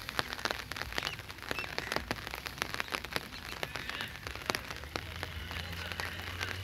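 Steady rain falling on wet brick paving and puddles, with close drops landing as sharp, irregular ticks. A low steady hum comes in near the end.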